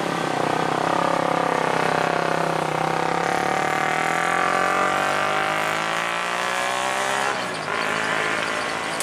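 Hino FG truck's diesel engine pulling away, its note climbing steadily for several seconds. About seven seconds in the note breaks off and drops, then climbs again.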